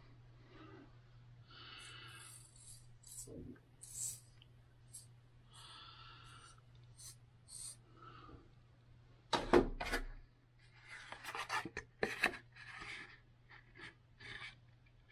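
Handling noise: scattered rustles, scrapes and soft taps of hands, clothing and a razor and small cardboard box close to the microphone, with one louder thump about nine and a half seconds in. A faint steady low hum underneath.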